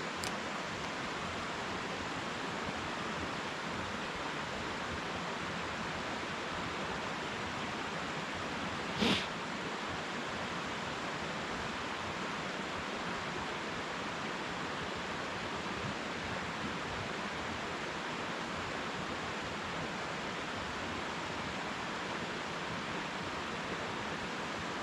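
Steady rushing noise of flowing water, even and unchanging, with one brief sharp sound about nine seconds in.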